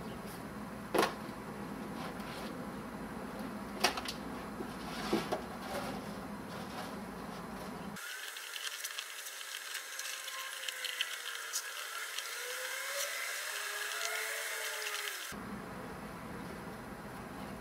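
A few sharp knocks and clicks, then about seven seconds of compressed air hissing into an inflatable air bag jack, with faint gliding squeaks.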